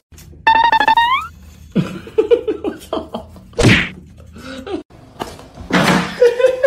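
Two loud thuds a couple of seconds apart, with a short rising pitched cry near the start and bits of voice between.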